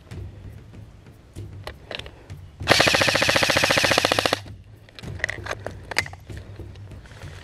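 Airsoft gun firing one full-auto burst of rapid, evenly spaced shots, about three seconds in and lasting under two seconds, with a few scattered sharp clicks around it.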